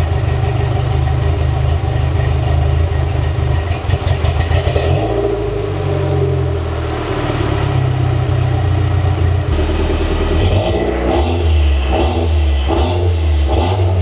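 Toyota 3S-GTE turbocharged four-cylinder engine in an MR2 running at a rough, unsteady idle, its speed rising and falling about midway and turning uneven near the end. The owner puts the poor idle down to air leaking past loose hose clamps on the intercooler-to-intake-manifold piping, with the distributor timing also not yet set.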